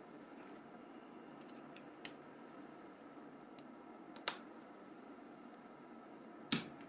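Three short, sharp clicks about two seconds apart over a faint steady background hiss: small plastic parts of a flip phone's housing being handled during disassembly.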